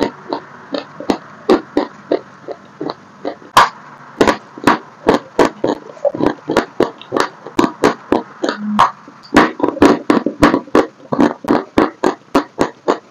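Dry pressed chalk being bitten and chewed close to the microphone: a quick, uneven run of sharp, dry crunches, two or three a second, with one louder crack about three and a half seconds in.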